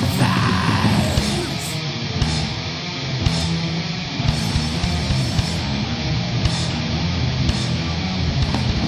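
Heavy metal song played by a full band: distorted electric guitars, bass and drums.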